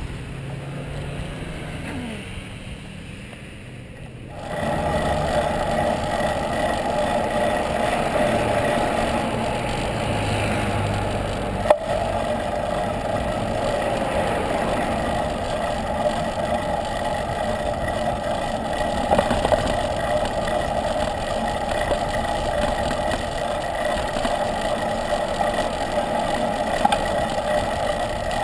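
Steady wind and road noise from riding a road bicycle, picked up by a handlebar-mounted camera: a rushing hiss with a steady hum, louder from about four seconds in. A single sharp knock about twelve seconds in.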